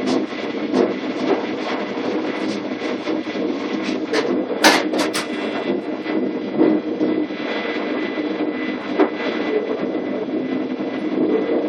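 Inside the cab of a moving DB Class 420 electric multiple unit: the steady hum of the train's running gear and equipment, with wheels clicking over rail joints and points. About halfway there is a louder burst of a few sharp knocks.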